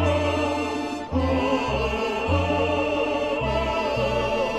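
Background music: a Russian folk tune played by a balalaika quartet, its bass stepping from note to note, with a short break about a second in.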